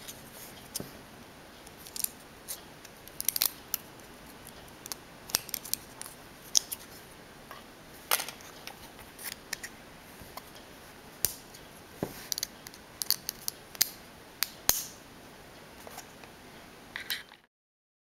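Sharp plastic clicks and snaps from a 3D-printed plastic bag clip being worked open and shut by hand. The clicks are irregular, some single and some in quick clusters, and the sound cuts off suddenly near the end.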